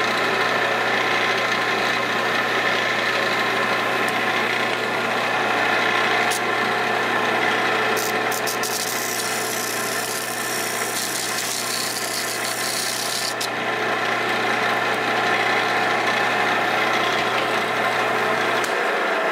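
Jet wood lathe running with a steady motor hum as it spins a cardboard motor mount tube with plywood centering rings. About halfway through, sandpaper pressed against the spinning plywood rings adds a hissing rasp for several seconds.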